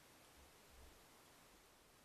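Near silence: a steady faint hiss, with two faint low thumps a little under a second in.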